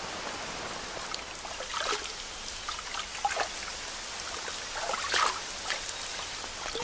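Light rain shower falling steadily, with a few louder drips here and there.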